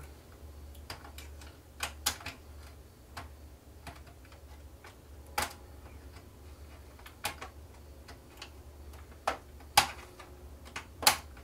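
Scattered small clicks and taps of a spudger prying at a fan cable's plastic connector on the projector's circuit board. About half a dozen irregular clicks come over several seconds, the loudest near the end.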